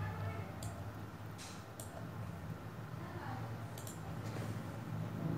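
A few short computer-mouse clicks, some in quick pairs, over a low steady hum.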